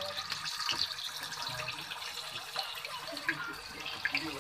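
Marinated chicken pieces sizzling and crackling as they deep-fry in hot oil in a kadhai.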